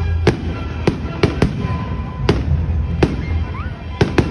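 Fireworks display: aerial shells bursting with sharp bangs, about eight in irregular succession, two close together near the end, with music playing underneath.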